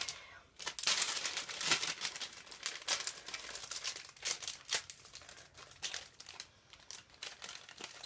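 Crinkling of a small snack bag as it is handled and opened, with a dense run of irregular crackles in the first couple of seconds that thins out to scattered crackles.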